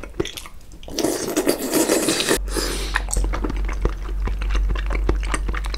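A person slurping a slice of raw salmon into the mouth for about a second and a half, starting about a second in, then chewing it with many small wet mouth clicks.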